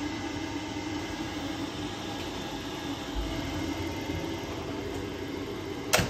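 Worcester Bosch combi boiler firing with its fan and burner running steadily, a sign that the heating now works with the faulty plug-in programmer removed. A sharp knock near the end.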